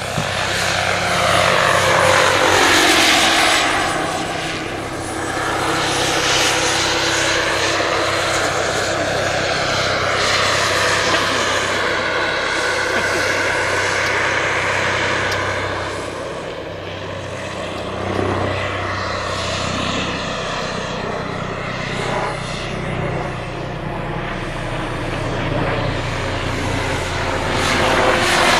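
Scale radio-controlled AS350 Écureuil model helicopter flying, its motor and rotor whine sliding down and back up in pitch several times as it passes to and fro.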